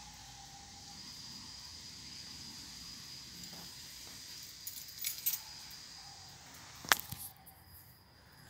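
Night insects trilling steadily in a high, even tone. A few sharp clicks come about five seconds in, and one loud click comes about seven seconds in.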